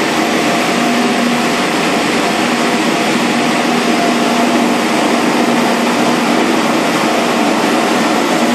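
Industrial salad and vegetable washer running: a steady, unbroken machine noise with a low hum tone through it.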